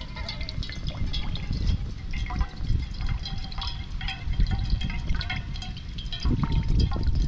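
Water from a green coconut pouring and splashing out through holes punched in its shell, a second hole letting air in so it flows freely. A steady low rumble sits under it.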